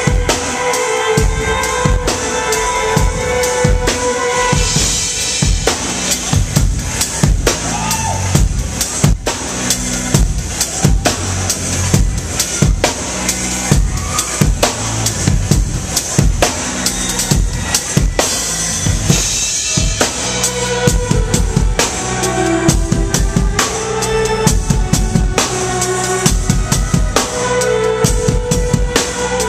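Live acoustic drum kit played in a steady dance beat, with bass drum, snare and cymbals, heard from right behind the kit. It drives an electronic dance track that has sustained pitched notes over the drums.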